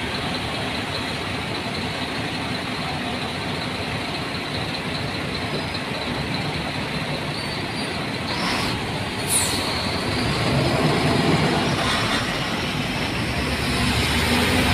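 Truck engine running with a steady rush of water as the truck drives through a flooded road. A brief high squeak comes about nine seconds in, and the low rumble grows louder after about ten seconds.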